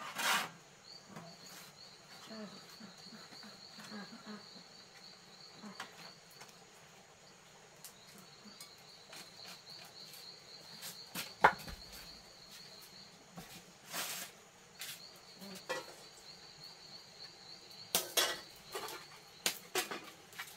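Crickets trilling steadily in a high band that breaks off twice, over the handling of a meal: rustling of leaf wrapping and light clinks of chopsticks, plate and bowl on a tray, with one sharp clink about eleven seconds in the loudest sound.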